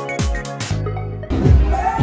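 Background music: an electronic beat with a deep, falling kick drum about twice a second, which breaks off about two-thirds of a second in. A little after a second in, a different, louder dance track with heavy bass comes in.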